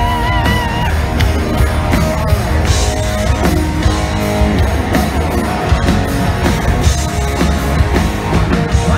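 Live rock band playing loud and steady, with guitar and drum kit.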